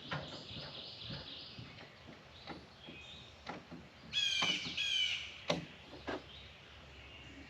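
A bird calling twice in quick succession, two loud calls of about half a second each a little after four seconds in, with a few faint scattered knocks around them.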